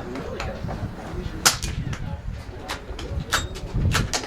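.22 LR rifle shots: a few sharp cracks, the loudest about a second and a half in, with more near three and four seconds. Wind buffets the microphone as a low rumble underneath.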